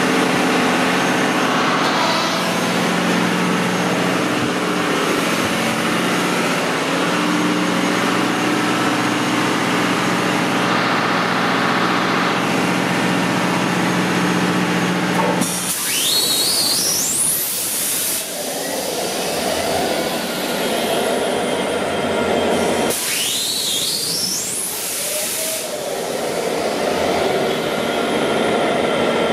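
Engine-room machinery drones steadily for about fifteen seconds. Then two start-ups of EMD 12-710G3B twelve-cylinder turbocharged diesels, about eight seconds apart: each is a sudden loud hiss with a whine rising steeply in pitch for two or three seconds, followed by steady running.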